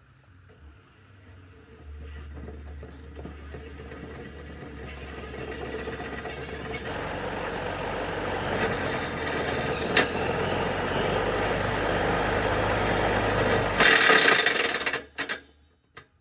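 An impact wrench spinning a newly installed riding-mower deck spindle and pulley up to speed: a whirring that builds steadily for about twelve seconds, turns loudest near the end, then cuts off suddenly. The spindle has a slight wobble but holds together at speed.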